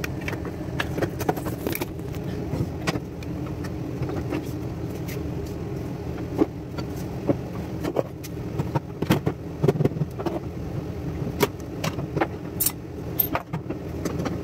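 An RV air conditioner hums steadily while things are set down and moved about on a kitchen counter, giving many short clicks and knocks.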